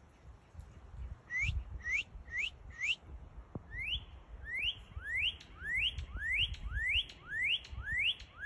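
Northern cardinal singing: a phrase of four short rising whistles, then after a brief pause a run of longer whistles sweeping up in pitch, about two a second.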